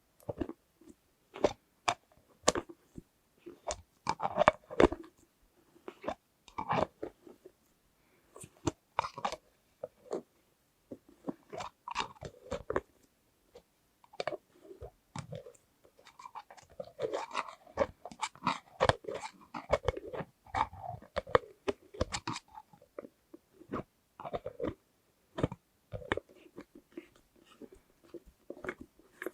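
Close-miked tapping and handling of plastic container lids: irregular sharp clicks and taps, busier and crackly for several seconds in the middle.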